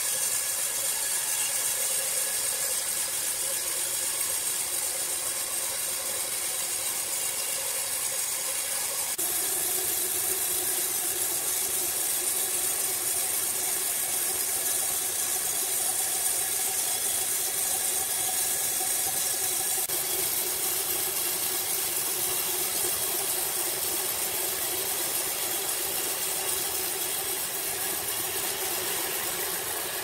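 Horizontal band sawmill running, its electric drive and band blade making a steady whine and hiss while sawing a log into planks. About nine seconds in the tone drops lower and the hiss grows, then holds steady.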